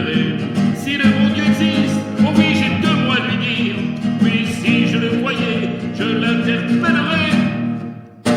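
Music: the instrumental close of a chanson, with a melody line over a guitar accompaniment. It dies down near the end.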